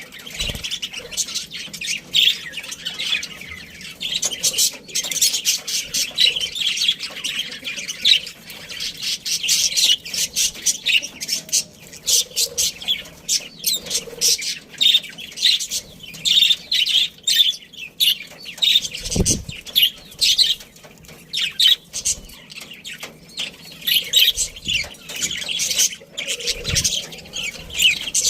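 A flock of budgerigars chattering: many rapid overlapping chirps and squawks, with a few low thuds.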